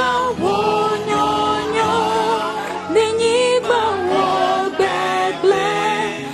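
A woman singing a slow melody in long held notes, each phrase breaking off after about a second.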